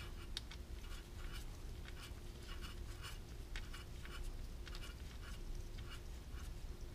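Faint, irregular light clicks and scratches of nitrile-gloved fingers turning a loosened 8mm bolt on a motorcycle's clutch oil filter cap, over a faint steady hum.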